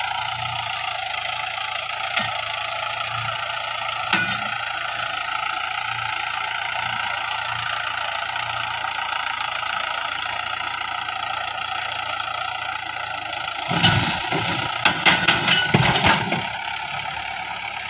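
Swaraj 843 XM tractor's diesel engine running steadily while it hauls a trolley heavily loaded with straw. A cluster of loud knocks and thumps comes about two seconds before the end.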